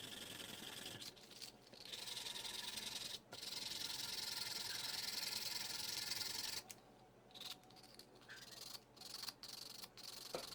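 Azalea wood being sanded or abraded: a steady scratchy rubbing for about six and a half seconds, broken briefly twice, then a few short, quieter strokes.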